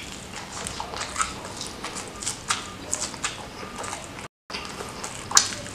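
Close-miked eating of fried chicken: chewing with wet mouth clicks and lip smacks, several a second. The sound cuts out briefly about four seconds in, and a sharp smack, the loudest of them, comes soon after.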